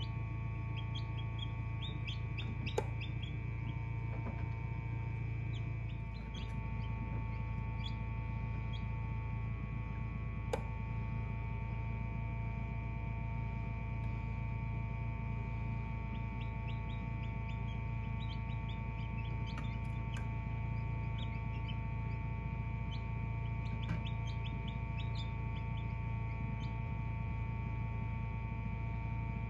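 Newly hatched chicks peeping in scattered clusters of short, high cheeps over the steady hum of an egg incubator, with a few sharp clicks.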